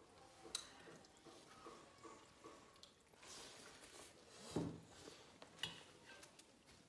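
Faint eating sounds: soft squishing of food and a few light clicks of a spoon against a steel bowl.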